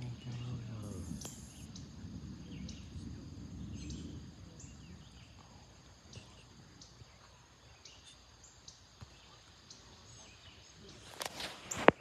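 Distant thunder rumbling low and fading away over about the first five seconds, over a steady high chirring of insects. A few sharp knocks near the end.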